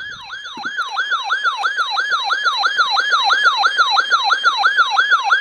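Electronic police siren in a fast yelp, its pitch sweeping rapidly up and down about three and a half times a second.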